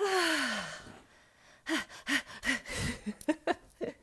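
A woman's long breathy sigh of relief, falling in pitch, at the start. It is followed by a few short murmured vocal sounds and some soft clicks.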